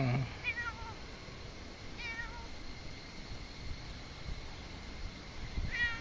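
Kitten meowing: three short, high-pitched meows, one near the start, one about two seconds in and one near the end, as it comes trotting up.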